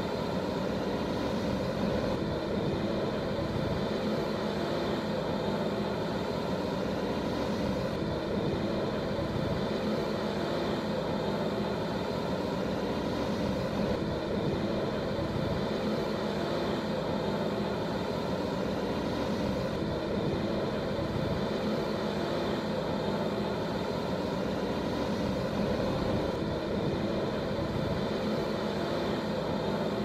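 Diesel engine of a JCB 3DX backhoe loader running with a steady, unchanging drone.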